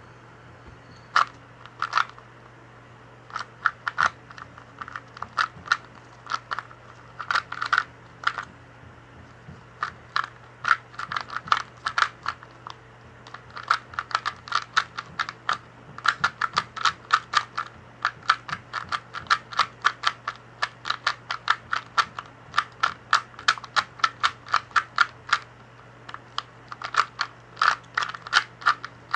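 Plastic 2x2 Rubik's cube being turned by hand: a run of sharp clicks and clacks as the layers snap round. Scattered at first, then fast bursts of several turns a second from about ten seconds in, with brief pauses between bursts.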